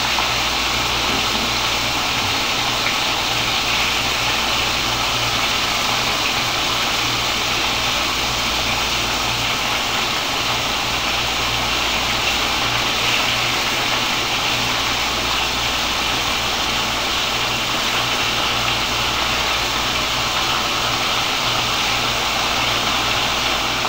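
Breaded sirloin steak frying in hot oil in a cast-iron skillet: a steady sizzle, with a low hum underneath.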